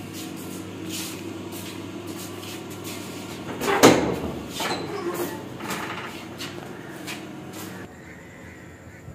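A door being unlatched and pulled open: a loud clank just under four seconds in, followed by a few smaller knocks and rattles. Footsteps and a steady low hum run underneath.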